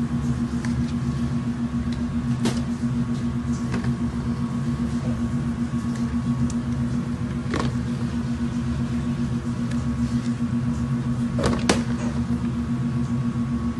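Steady low machine hum of kitchen equipment, with a few sharp clicks and knocks from sauce being scooped and poured over chicken in plastic tubs.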